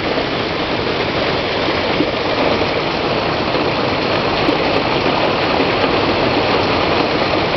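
Heavy hail falling: a dense, steady hiss of hailstones pelting down.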